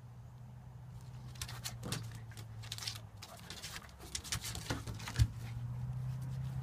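Dogs play-fighting: a low, continuous play growl that breaks off briefly mid-way and then resumes, with claws scrabbling and clicking on wooden deck boards and one sharp thud about five seconds in.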